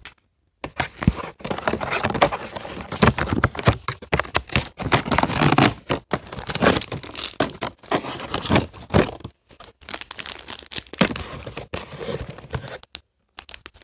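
Plastic toy packaging crinkling and tearing as it is opened by hand: a dense run of irregular rustles and rips, with brief pauses.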